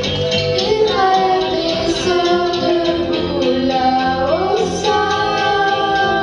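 Children's choir singing in unison over a steady rhythmic instrumental accompaniment; the voices come in about half a second in and hold long notes, with a sliding rise near the four-second mark.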